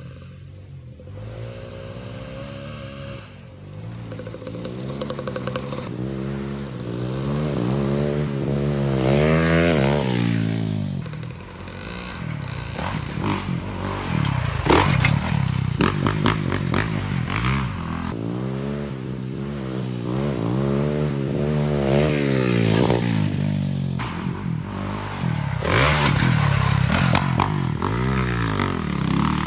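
Small single-cylinder pit bike engine revving up and dropping off again and again as it is ridden hard around a dirt track, its pitch climbing and falling with each burst of throttle. About halfway through a sharp knock comes as the bike lands a jump.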